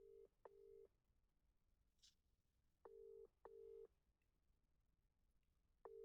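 Phone call ringing out on speaker: the British double-ring ringback tone, two short beeps then a pause, heard three times while the call waits to be answered.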